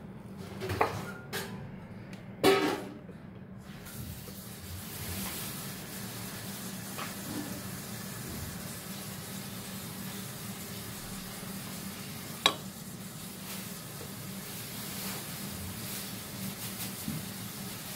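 Food-prep handling sounds: a spatula working filling in a steel pot and hands on glass plates, with a few sharp knocks and clinks, the loudest about two and a half seconds in and a single sharp click about twelve seconds in, over a steady low hum.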